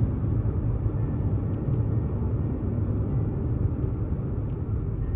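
Steady rumble of wind buffeting and road noise from a car driving along, heavy in the low end, starting abruptly at the beginning.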